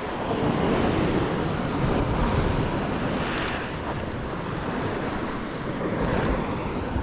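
Sea waves washing and surging, with wind buffeting the microphone. Two swells in the wash come about three seconds in and again about six seconds in.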